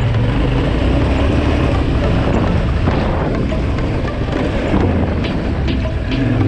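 Yamaha Ténéré 700's parallel-twin engine running under way off road, with heavy wind buffeting on the helmet or bike-mounted camera microphone.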